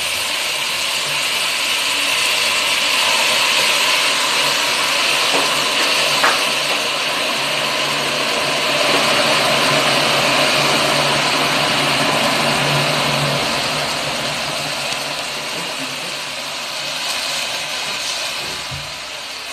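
Steady sizzling hiss of vermicelli cooking in a hot pan, swelling slightly around the middle and easing off toward the end.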